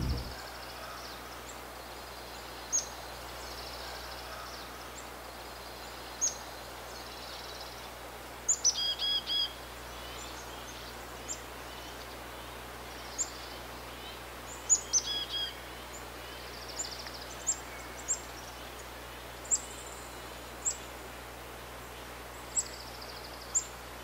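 Black-capped chickadee calling: thin, high, short notes every second or two. About 8 seconds in and again near 15 seconds come chick-a-dee calls, a high note followed by a few repeated lower 'dee' notes. A steady faint outdoor hiss lies underneath.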